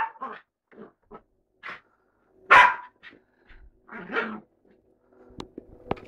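Bichon Frise barking in play: several short, separate barks, the loudest about two and a half seconds in. Two sharp clicks follow near the end.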